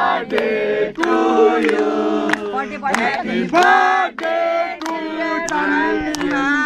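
A group of men and women singing together in unison, clapping their hands along with the song.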